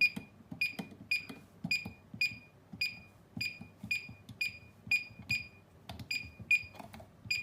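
Schindler Miconic 10 elevator destination-call keypad in keyboard test mode, giving a short, high electronic beep with a soft key click as each key is pressed, about fifteen in a row at roughly two a second.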